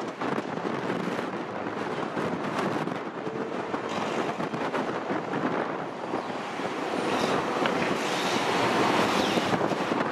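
Wind buffeting the microphone over the steady rush of a Boeing 787-9 Dreamliner's jet engines as it rolls along the runway, growing louder in the last few seconds.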